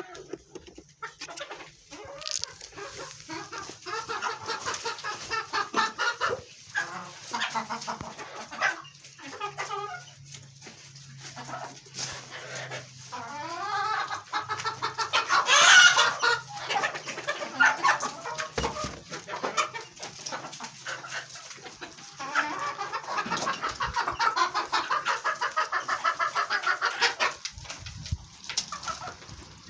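A flock of chickens clucking and calling continuously, with one louder call about halfway through.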